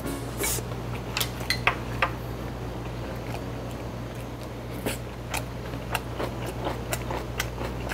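Wooden chopsticks and a spoon clicking and tapping irregularly against bowls while someone eats and chews, with a steady low hum underneath.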